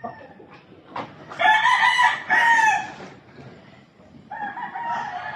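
Rooster crowing: one loud crow in two parts about a second and a half in, then a second, quieter crow starting near the end.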